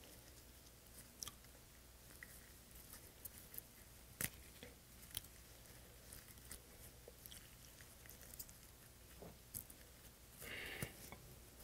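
Faint, scattered eating sounds: soft clicks and squishes as a piece of cooked sea hare is pulled apart in plastic-gloved hands and chewed, with a brief soft hiss near the end.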